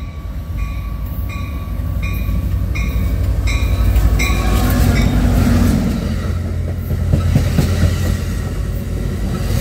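Diesel passenger locomotive, an F59PHI, pulling in and passing close by: its engine is loudest about four to six seconds in. The rumble and wheel clatter of bilevel passenger cars rolling past follow. A bell rings in evenly spaced strokes, about one every 0.7 s, over the first few seconds.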